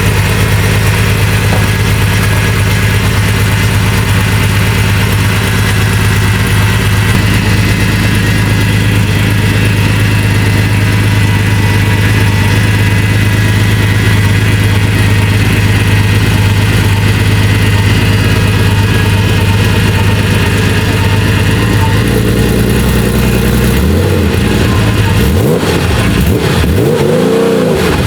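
Supercar engine running steadily at idle, then revved in a few quick blips near the end, the pitch rising and falling with each.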